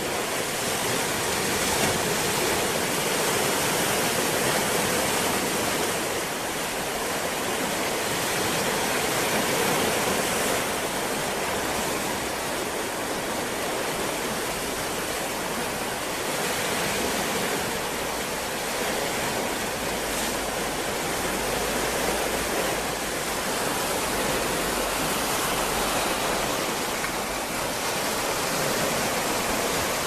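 Atlantic Ocean waves washing in a continuous surf hiss that swells and eases gently every few seconds, with a deeper rumble joining for several seconds past the middle.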